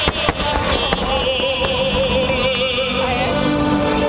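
Orchestral music with a wavering, vibrato melody, heard through loudspeakers, with sharp cracks of fireworks bursting over it, several close together in the first half-second and a few scattered after.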